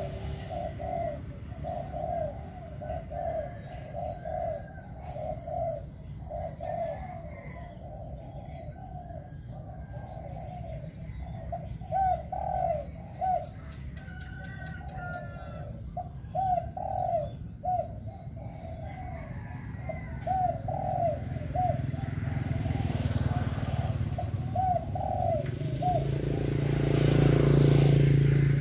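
Caged decoy spotted dove cooing over and over in phrases of short, rounded notes. A low rumble builds in the last few seconds and is loudest near the end.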